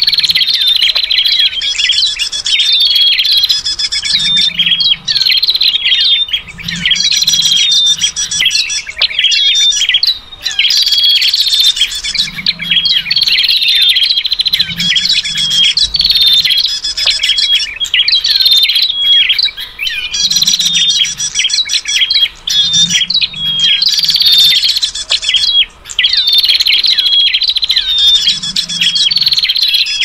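Bird-lure recording of a loud, busy chorus: prenjak chattering mixed with calls of the kutilang (sooty-headed bulbul) and the trucukan (yellow-vented bulbul). The chirps and whistles repeat in a pattern every couple of seconds.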